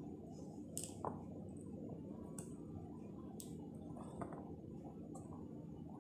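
Faint crackles and squishes of a pomegranate being broken apart by hand, its peel tearing and seeds being pried loose: a handful of short, crisp snaps over a low steady background noise.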